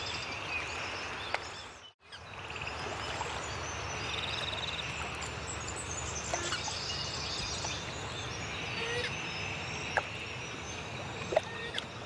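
Outdoor ambience of various birds calling and chirping over a steady background hiss, with a short rapid trill about four seconds in and a few sharp clicks. The sound drops out briefly about two seconds in.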